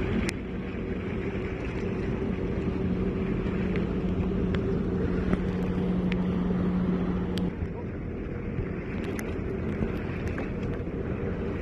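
Motorboat engine running with wind buffeting the microphone and water rushing by. A steady engine hum drops away about seven seconds in.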